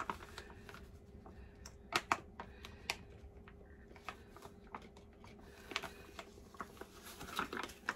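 Plastic zipper freezer bag crinkling and crackling in the hands as sauce is squeezed out through a cut corner, in scattered small crackles that get busier near the end.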